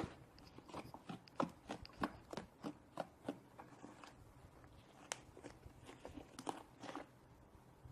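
Fluffy foam slime (white glue, shaving foam and foaming hand soap) squished and kneaded by hand, giving faint, irregular crunchy crackles and pops a few times a second as air bubbles in it burst.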